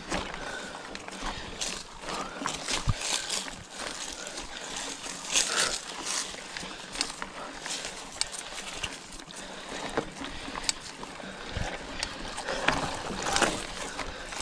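Scott Spark 960 full-suspension 29er mountain bike rolling down a dirt trail covered in dry leaves and rocks: tyres crunching and hissing over the surface, with frequent short clicks and knocks from the bike over bumps.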